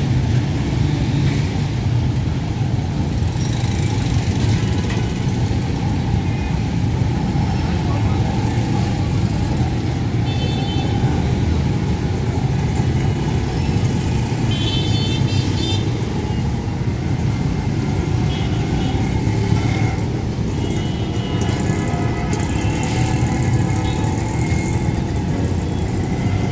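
Busy street ambience: a steady rumble of motor traffic with a mixed background of voices. A few brief high-pitched tones come through around the middle.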